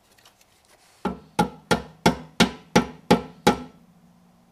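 Hammer blows on metal on a motorcycle: eight sharp strikes in a steady rhythm of about three a second, with a low ring that lingers after the last blow.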